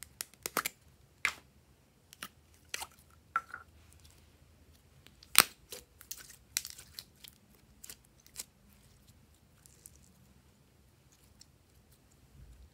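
Soft purple slime being squeezed and pulled apart by hand, giving irregular sticky clicks and pops, the loudest about five seconds in, growing sparser near the end.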